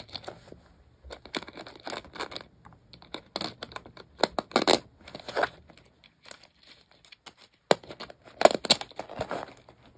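Hands fitting a Raspberry Pi 5 board into a layer of an acrylic case: irregular plastic clicks, scrapes and rustling, loudest around the middle and again near the end.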